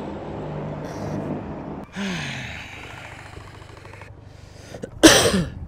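A man's wordless vocal sounds: a falling, sigh-like breath about two seconds in, then a louder, breathy exclamation with a dropping pitch near the end.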